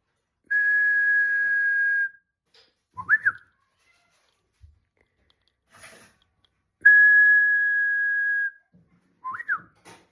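Japanese bush warbler singing its ho-hokekyo song twice: a long steady whistled note held about a second and a half, then a quick up-and-down flourish.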